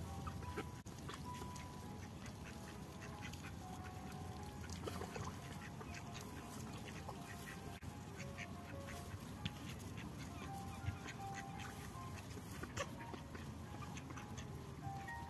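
Young mallard ducks pecking at grain scattered on mud, with many short clicks of bills striking the ground and duck calls.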